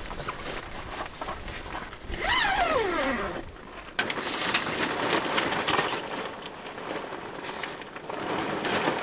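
Wind gusting over the open car doors and the microphone, coming and going in strength. About two seconds in, a single call with several overtones slides steadily down in pitch for about a second.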